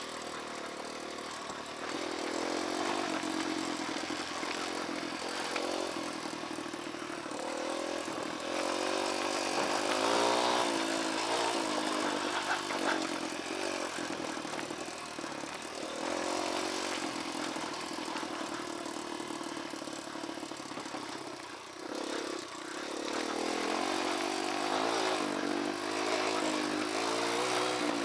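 Dirt bike engine running under a rider on a rocky trail, its revs rising and falling unevenly, with a brief drop in the engine sound about three-quarters of the way through.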